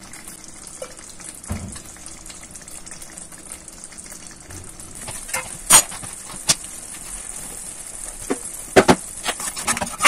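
Thick tomato chutney simmering in an aluminium kadai, a soft steady sizzle and bubble, broken by a few sharp clicks about halfway through and near the end.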